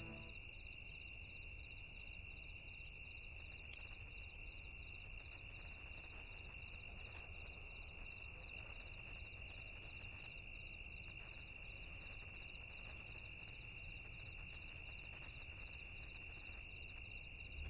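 Faint, steady chirring of insects: one high unbroken trill with a pulsing layer above it.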